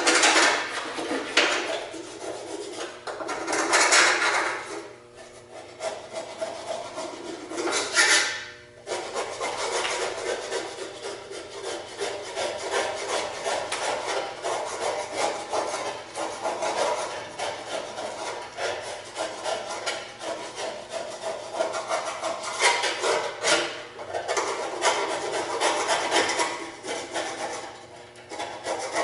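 A scraper scraping packed grass clippings off the underside of a Snapper walk-behind lawn mower deck, in uneven strokes with a few louder ones.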